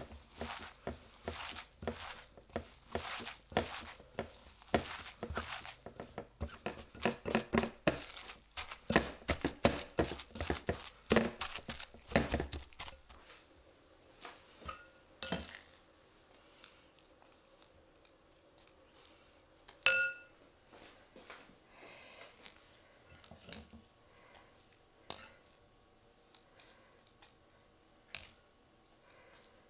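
A hand mixing a moist okara and shiitake filling in a glass bowl, a dense irregular run of short squishing and scraping sounds. About 13 seconds in, this gives way to several sharp clinks a few seconds apart, some ringing briefly, as a metal spatula scoops filling against the glass bowl.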